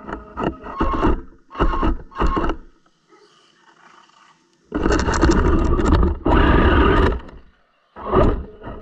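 RC car's motor and drivetrain revving in short throttle bursts, picked up by a camera mounted on the car: four quick blips, a pause, a longer run of about two and a half seconds, then one more short blip near the end.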